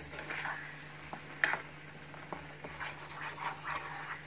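A wooden spatula stirring and scraping thick almond paste in a nonstick pan, with soft wet squelches, irregular scrapes and a sharp knock about a second and a half in, over a low steady hum. The paste is being cooked down with sugar syrup until it thickens.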